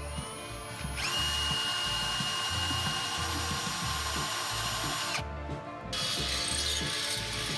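Electric drill spinning up to a steady high whine and running for about four seconds, stopping briefly, then starting again near the end.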